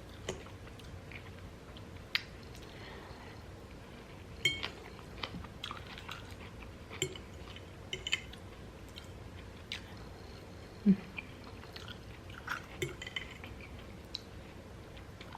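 Close-up chewing of a mouthful of taco salad, with short crunches and clicks at irregular intervals.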